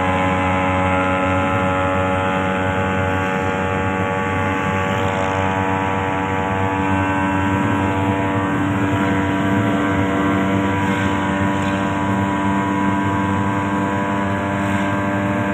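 Suzuki van's engine running steadily at cruising speed, heard from inside the cab with road noise, its drone holding an even pitch.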